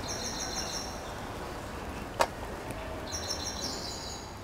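A small bird chirping in two quick runs of rapid, repeated high notes, near the start and again about three seconds in, over steady outdoor background noise. A single sharp click sounds a little after two seconds.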